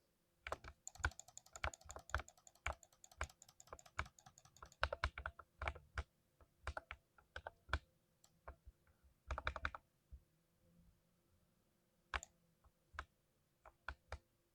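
Typing on a 60% mechanical keyboard: a quick run of keystrokes for about ten seconds that ends in a fast flurry, then a pause and a few single key presses near the end.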